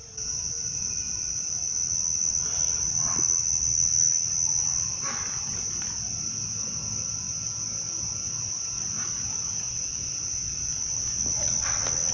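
Steady, high-pitched chorus of night insects calling without a break, over a low rumble and a few faint rustles.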